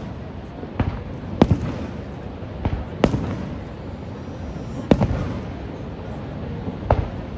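Aerial fireworks shells bursting overhead: about six sharp bangs at uneven intervals, each with a short echoing tail, over a steady low rumble.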